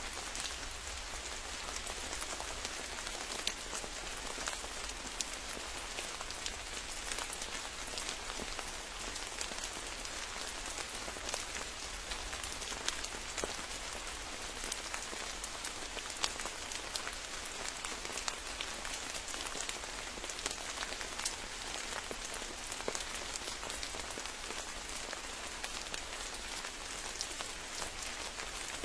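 Steady rain falling on a forest, an even hiss dotted with the sharp ticks of individual drops.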